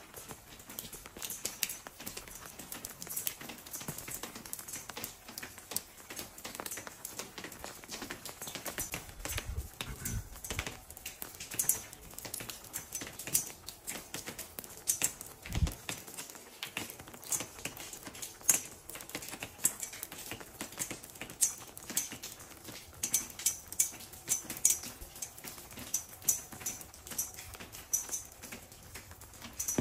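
Footsteps on wet stone paving, a run of light irregular taps and clicks, with one low thump about halfway.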